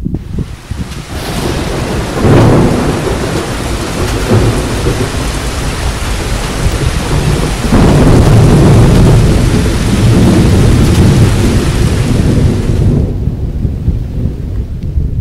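Thunderstorm: heavy rain hissing steadily, with two long rolls of thunder, the first about two seconds in and the second near the middle. The rain cuts off about two seconds before the end.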